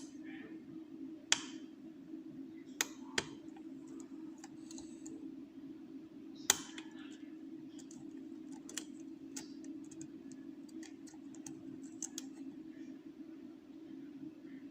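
Lock pick and tension wrench working the pins of a Eurospec MP5 euro cylinder held in a vise. Scattered small irregular clicks and ticks, with a few sharper clicks, the loudest about six and a half seconds in, over a steady low hum.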